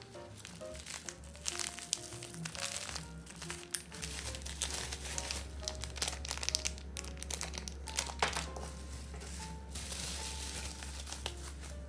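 Plastic bubble-wrap mailer and packaging crinkling irregularly in the hands, over soft background music.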